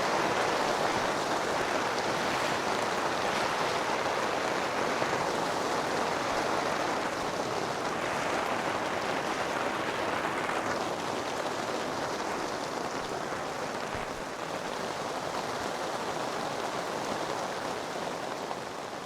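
Heavy rain pouring steadily, easing slightly near the end.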